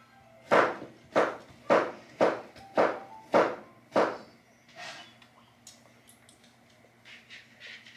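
Seven sharp knocks in an even rhythm, a little under two a second, followed by a few fainter taps.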